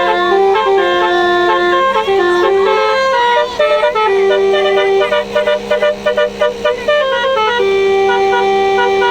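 Basuri telolet bus horn playing a tune: held horn notes stepping up and down, with a run of quick short notes through the middle. A steady low hum runs underneath.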